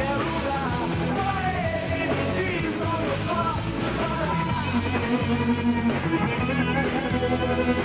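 Rock band playing an instrumental stretch of a song, with guitar over bass and drums and some vocals.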